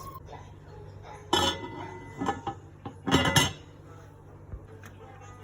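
Dishes and metal utensils clattering and clinking as they are handled, in three short bursts about a second apart.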